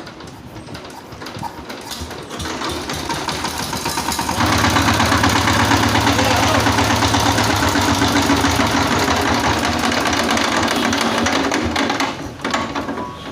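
Chinese 12/16 HP single-cylinder diesel power-tiller engine running with a fast, dense clatter. It gets louder and heavier about four seconds in, then drops away about a second before the end.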